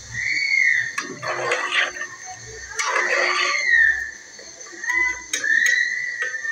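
A metal slotted spoon stirring and splashing thin spiced broth in an aluminium pot, in two swishing bursts, then a few sharp clinks against the pot. Over it a high animal call rises and falls several times, drawn out each time.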